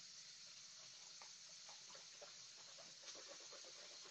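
Near silence: a low steady hiss of room tone.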